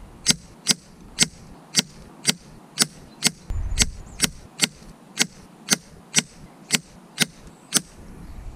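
A quick, evenly spaced run of about sixteen sharp cracks, about two a second: .177 slugs striking the paper target and the wooden board behind it as a group forms.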